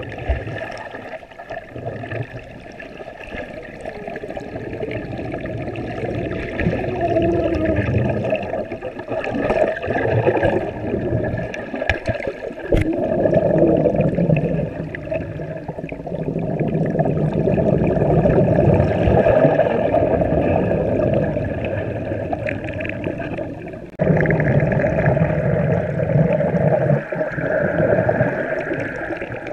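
Underwater sound of a swimming pool picked up by a GoPro held beneath the surface: muffled rushing, gurgling and bubbling water stirred by a small child kicking and paddling close by. The rushing grows abruptly louder about 24 seconds in.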